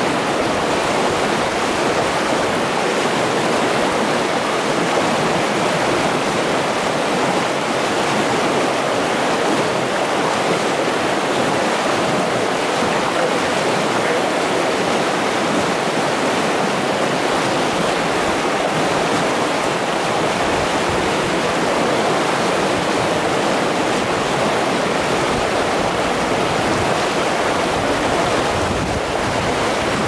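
River rapids rushing steadily over rocks, a constant even rush of white water.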